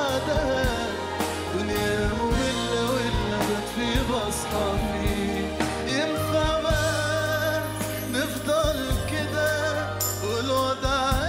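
A man singing a solo into a microphone in a wavering, ornamented melody, backed by a live band with bass and percussion.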